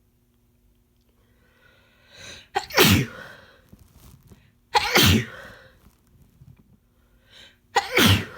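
Three loud, uncovered human sneezes about two and a half seconds apart, the first after a rising in-breath; the sneezer is sick.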